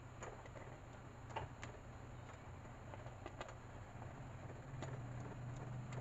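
Silicone spatula stirring in a nonstick pan: faint, irregular light clicks and taps against the pan over a low steady hum.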